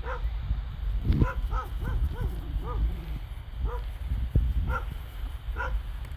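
A series of short animal calls, each a brief note that rises and falls in pitch, repeated irregularly several times a second, over a low rumble.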